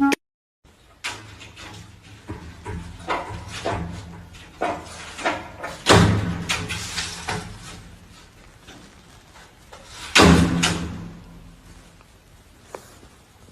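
A run of knocks and clatters, with two heavy thumps about six and ten seconds in, over a low steady hum.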